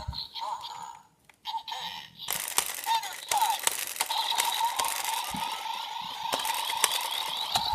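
Power Rangers Dino Charge Morpher toy playing electronic sound effects through its small speaker, with plastic clicks as a Dino Charger is handled and loaded. A short near-silent gap about a second in, then a steady tinny electronic sound with sweeping tones runs for several seconds.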